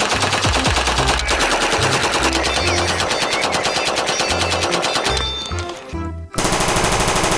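Uzi submachine gun firing on full automatic for about five seconds, with music playing underneath. After a short lull, about a second of fast, even rattling from a toy Uzi's electronic firing sound comes near the end.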